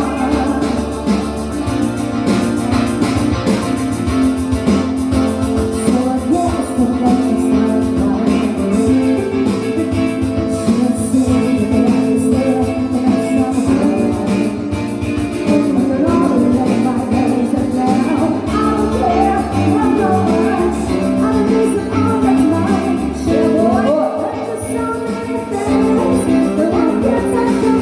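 A song sung over guitar accompaniment.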